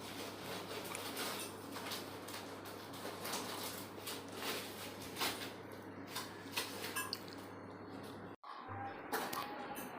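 Kitchen handling sounds: scattered light clicks and knocks of utensils against a pot or dishes, over a steady low hum that stops at a brief dropout about eight seconds in.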